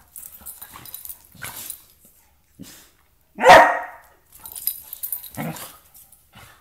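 A Doberman and a brindle puppy play-fighting, with scattered short scuffling sounds and one loud bark about three and a half seconds in.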